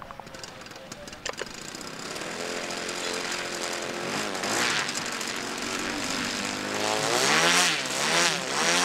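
Piston engine and propeller of an Extra aerobatic plane flying past, growing louder over the first few seconds. Near the end its pitch swings down and back up several times as the aircraft passes and manoeuvres.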